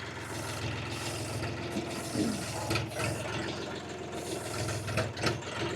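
UHI 254 compact tractor's engine idling steadily, with a few sharp metal knocks and clanks from the three-point hitch gear.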